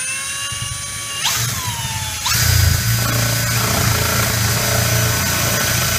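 Cordless drill with a spade bit boring into drywall. The motor whine changes pitch twice in the first two and a half seconds, then runs steady.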